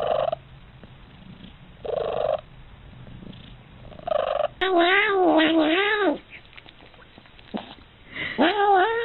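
Domestic cats calling: three short calls about two seconds apart, then a long wavering yowl lasting over a second; another wavering yowl begins near the end.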